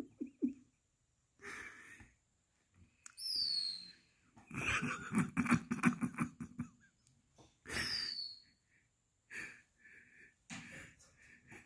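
A person's wheezing, breathy laughter in short bursts, the longest a run of rapid pulses in the middle, with two high falling squeaks, one about three seconds in and one about eight seconds in.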